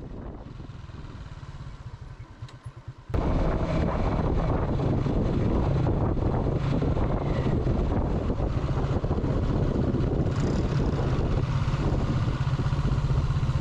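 Motorcycle taxi engine running as the bike is ridden along the road, a steady low hum under dense road noise. Quieter for about the first three seconds, then suddenly much louder.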